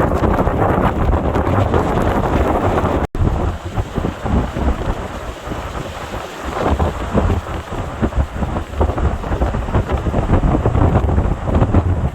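Hurricane wind gusting and buffeting the microphone with a low rumble, with rain mixed in. A brief cut about three seconds in; the gusts ease for a few seconds, then build again near the end.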